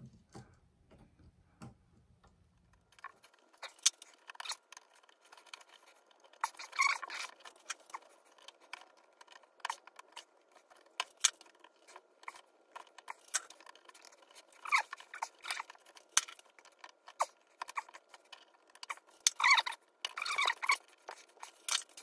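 Irregular small metallic clicks, scrapes and rattles of hands working copper wires onto a metal light switch and its screw terminals, with busier bursts of handling a few times.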